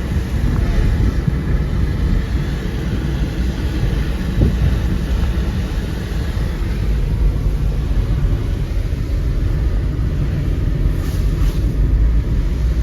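Car driving on a road: a steady low rumble of engine and road noise.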